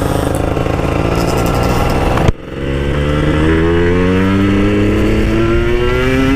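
Yamaha RX-King two-stroke motorcycle engine running under way. After an abrupt break about two seconds in, it accelerates hard through a gear, its pitch rising steadily, then falls right at the end as the rider shifts.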